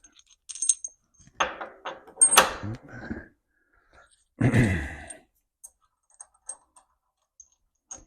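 Small metal hardware clinking and rattling as it is handled, with two louder clattering, knocking handling sounds, one a second and a half in and one about four and a half seconds in.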